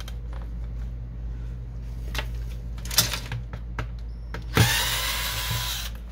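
A cordless electric screwdriver runs for about a second and a half near the end, driving a screw out of the printer's frame. It is preceded by a few sharp clicks and knocks of parts being handled.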